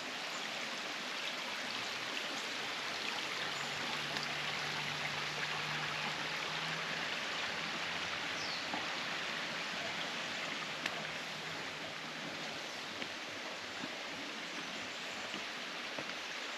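Steady rush of a stream's running water.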